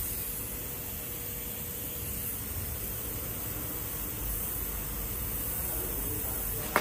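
Steady hiss of background noise with no clear rhythm or pitch, and one sharp click at the very end.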